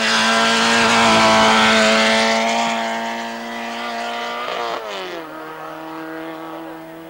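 Racing hatchback's engine held at high revs at a steady pitch. About four and a half seconds in, the note drops quickly to a lower steady pitch and fades as the car goes away up the hill.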